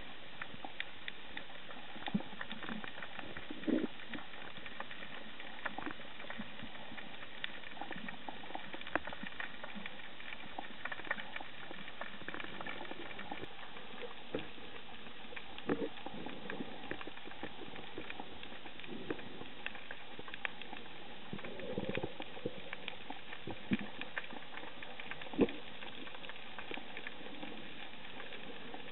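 Underwater ambience through a camera's housing: a steady hiss dotted with many small clicks and crackles, with a few louder knocks.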